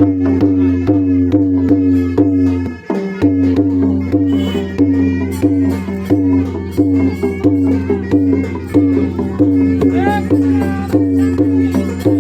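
Traditional Indian folk music with a steady, even drum beat of about two to three beats a second over a held low tone, with a short break about three seconds in.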